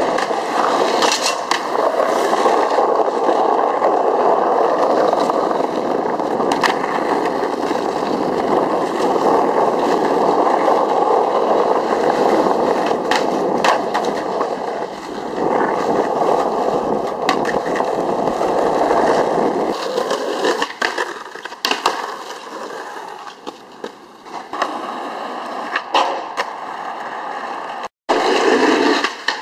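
Skateboard wheels rolling over rough asphalt, with sharp clacks of the board striking the ground during tricks. The rolling grows quieter about twenty seconds in, leaving scattered clacks, and the sound cuts off abruptly near the end.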